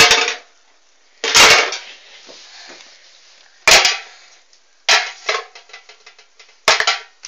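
Small Easter eggs dropped one after another into a metal bucket, each landing with a clatter and a short rattle: about six separate clanks, the one about a second in the longest.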